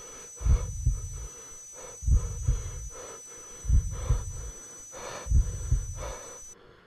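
Slow heartbeat sound effect: a low double thump, lub-dub, about every one and a half seconds, with breathing between the beats. It fades away near the end.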